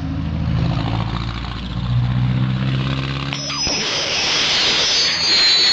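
A car engine running with a slight rev, cutting off abruptly about three and a half seconds in. A high whistle from a whistling firework then starts and slowly falls in pitch.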